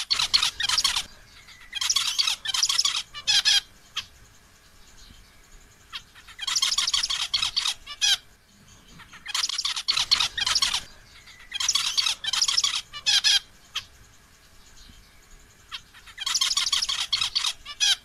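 Male zebra finch singing in short bouts of rapid, high, chattering notes. There are about six bouts, each one to two seconds long, with a pause of a second or two between them.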